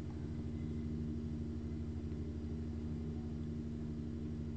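Steady low electrical hum with faint hiss: the background noise of the recording setup, with no other sound.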